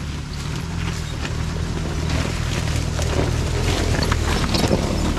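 Maruti Gypsy 4x4 engine running steadily at low revs as it crawls up a rocky trail, getting louder as it comes closer. Loose stones and dry leaves crunch and knock under the tyres.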